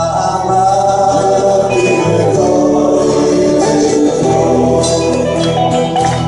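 A man singing a Hasidic song into a microphone with a live band of electric and acoustic guitars and drums. The voice comes in right at the start, raising the level, and carries on over the band.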